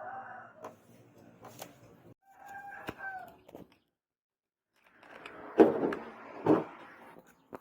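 A rooster crowing in two short calls, with scattered light clicks, then two loud knocks about a second apart near the end.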